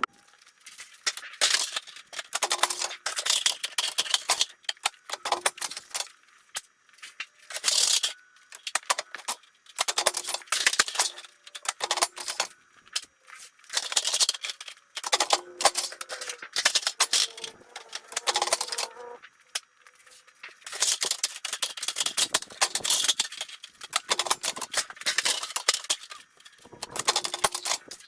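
Thin sheet-metal duct stock clattering and rattling in irregular bursts of sharp clicks and scrapes as it is handled and worked.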